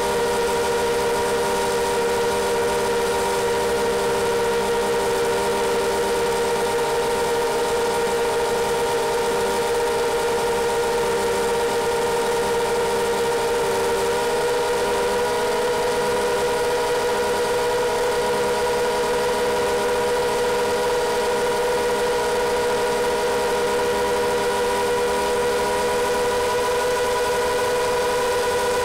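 FPV quadcopter's brushless motors and propellers running at steady climb power, a constant multi-tone whine heard through the onboard camera; the pitch shifts slightly about halfway through as motor speed changes.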